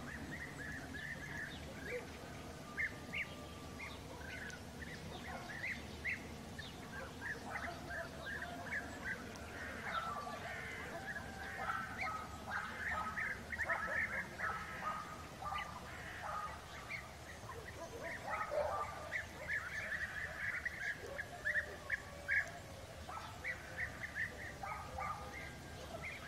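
A flock of European bee-eaters calling in flight, many short calls overlapping one another continuously.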